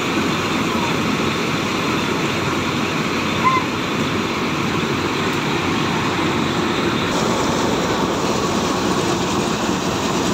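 Combine harvester engine and threshing machinery running steadily while the unloading auger pours threshed paddy onto a tarpaulin, the falling grain adding a continuous rushing hiss.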